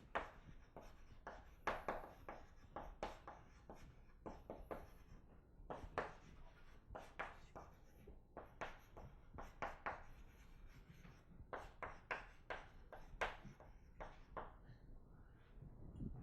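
Writing by hand: irregular short taps and scratchy strokes of a writing tool on a surface, several a second, with brief pauses between bursts.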